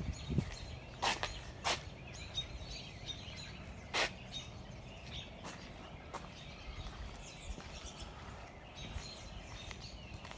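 Outdoor ambience with birds chirping in the background, and three sharp clicks in the first half.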